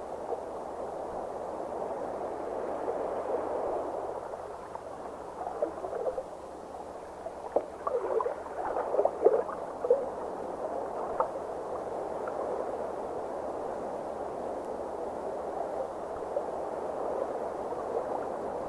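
Underwater ambience of rushing current, a steady wash of water. In the middle stretch there is a run of irregular bubbling gurgles.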